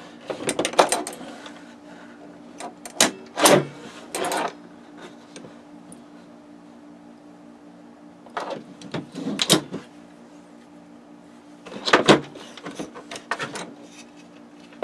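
Tools and small parts being handled: scattered clicks, knocks and clatter in several short clusters, over a steady low hum.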